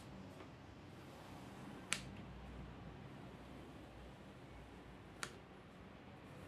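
Three sharp single clicks over faint room tone: one at the start, one about two seconds in and one a few seconds later.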